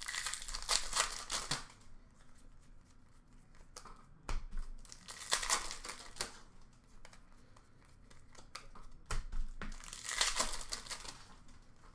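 Foil trading-card pack wrappers crinkling and tearing as hockey card packs are ripped open and the cards handled, in three bursts about four seconds apart with quieter handling between.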